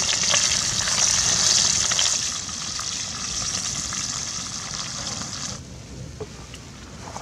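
Fish frying in hot oil: a steady sizzling hiss with fine crackles. It gets quieter about two seconds in and cuts off abruptly about five and a half seconds in.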